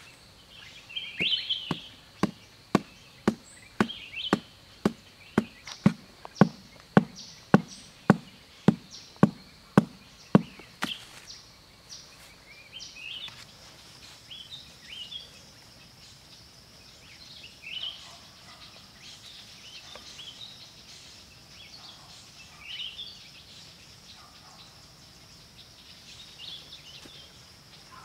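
A hand-held stone pounding a wooden stake into soft earth: dull knocks at about two and a half a second for roughly ten seconds, then they stop. Birds chirp now and then.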